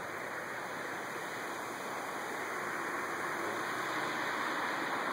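Steady rushing noise, with a Seat Leon ST Cupra approaching faintly in the distance and slowly growing louder toward the end.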